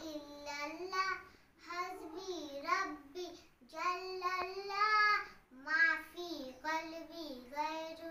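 A young girl singing an Urdu naat unaccompanied, in short melodic phrases with brief pauses between them.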